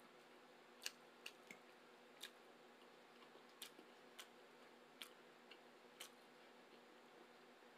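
Scattered sharp crackles and light taps, about nine in all and spaced irregularly, from handling the aluminium foil around burritos and a cardboard burrito box, over a faint steady hum.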